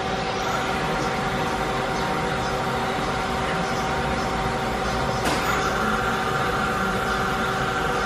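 Nomura NN32YB2 CNC Swiss-type lathe running: a steady machine hum with a constant whine. A single sharp click comes about five seconds in, after which a higher steady tone joins.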